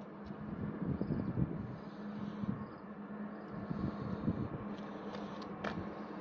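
Outdoor ambience: uneven low rumble of wind on the microphone under a steady low hum, with a few sharp clicks near the end.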